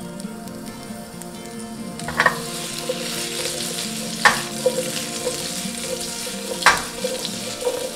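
Potato chunks sizzling in oil in a nonstick frying pan, getting louder about two seconds in. Three sharp clacks, about two seconds apart, as the pan is tossed and the potatoes land back in it.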